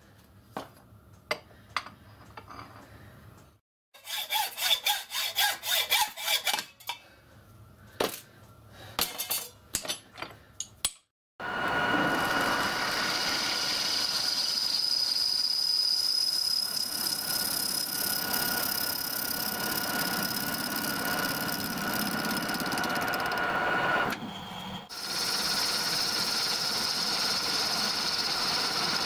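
Hand work on a cast-iron blank in a bench vise: clicks and knocks, then a short run of quick rasping strokes. About a third of the way in this gives way to a metal lathe facing the cast-iron blank to thickness, a steady running cut with a high whine, which dips briefly near the end.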